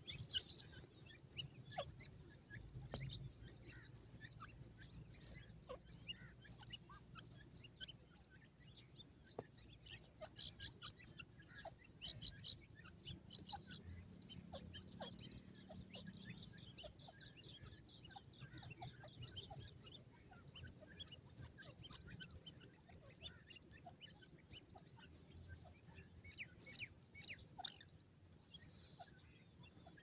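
Faint, scattered high chirps and peeps of young francolin (teetar) chicks, with a few quick trilled runs of calls midway.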